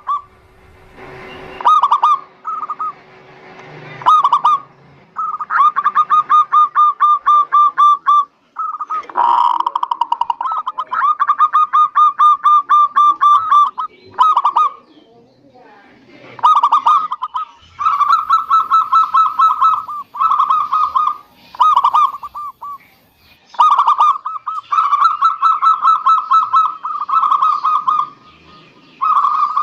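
Zebra dove (perkutut) song: phrase after phrase of rapid, evenly pulsed cooing, with short pauses between phrases.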